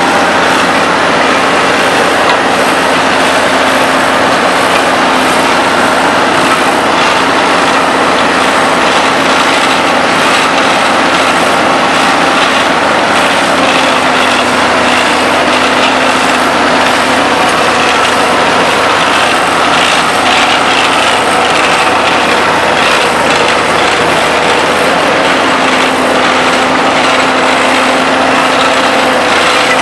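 Diesel engines of road-paving machinery, an asphalt paver and a dump truck, running steadily at a constant hum with a few drones that shift slightly in pitch.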